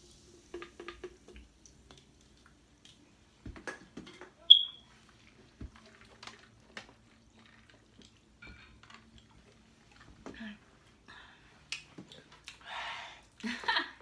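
Mukbang eating sounds: scattered crunchy bites and chewing of hot Cheetos–coated chicken, with handling clicks. One sharp high ping about four and a half seconds in.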